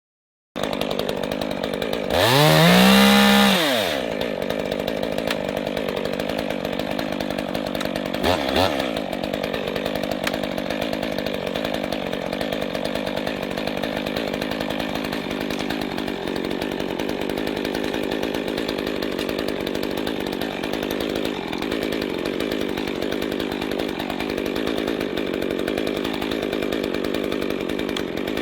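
Gasoline chainsaw running steadily, revved hard about two seconds in with its pitch rising and then falling back, and revved briefly again near the nine-second mark.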